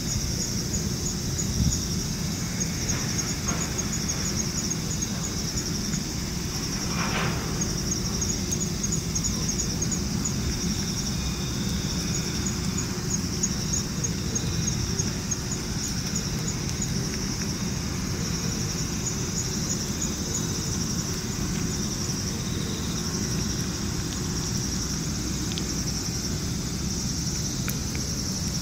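A steady, high-pitched chorus of summer insects with fast regular pulses, over a low steady rumble.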